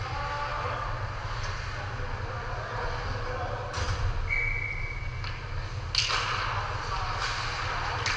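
Ice hockey game sound in a rink: a steady low hum under the scrape and clatter of play, with a hard crack a little under four seconds in and a louder bang that rings briefly about six seconds in. A short steady whistle-like tone sounds for about a second between them.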